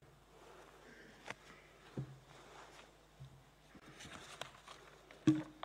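Low room tone of a large assembly hall with a faint steady hum, a few soft knocks, and a sharper thump near the end.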